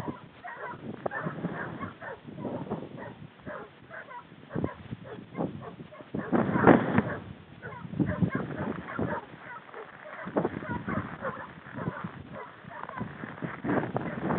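Irregular steps and rustling through dense scrub, with one louder burst about halfway through.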